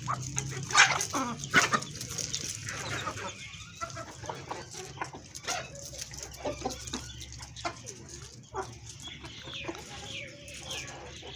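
Chickens clucking and calling, many short overlapping calls with two louder squawks about a second in.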